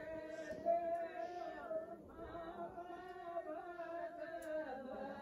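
Faint singing voices holding long, slowly wavering notes, a chant-like ritual song. A brief knock sounds under a second in.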